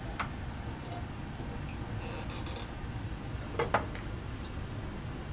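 A lab clamp being fitted and tightened around a filter flask: a few sharp clicks and knocks of metal on glass, the loudest two close together near the middle, over a steady low hum.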